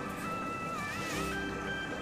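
Background music: a melody of held notes that step up and down in pitch over a bass line.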